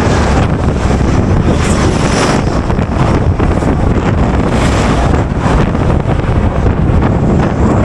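Strong crosswind buffeting the microphone: loud, steady wind noise, heaviest in the low rumble, with gusts rising and falling.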